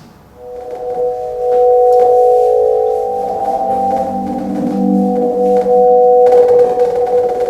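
Synthesized organ-like chord of steady held tones swelling in, with lower held notes joining about three seconds in: the electronic sound of a body-movement-controlled instrument.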